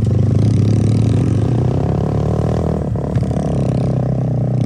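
Motorcycle engine running steadily while riding over a rough, stony off-road track, with rattling from the bike and a single knock about three seconds in.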